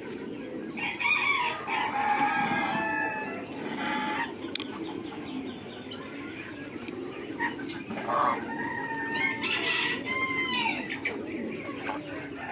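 Farmyard fowl calling in a pen of Muscovy ducks and a domestic goose. Pitched, bending calls come in two spells, over the first few seconds and again about eight to eleven seconds in, over a steady low background of the flock.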